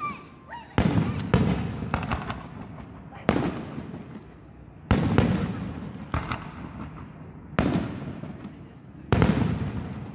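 Aerial fireworks shells bursting: about seven sharp booms over ten seconds, each trailing off in a long echoing rumble.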